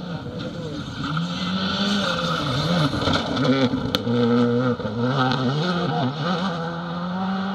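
Škoda rally car driving hard on a gravel stage. The engine revs up and falls back several times through gear changes and lifts, loudest in the middle as the car passes close.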